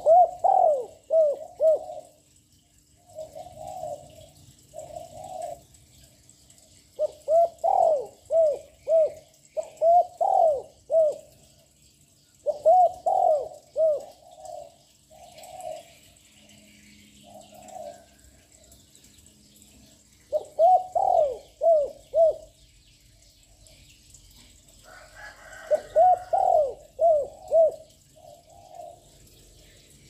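Young spotted dove cooing loudly and continuously. Each phrase is a run of several quick coos, repeated every few seconds, with softer phrases in between.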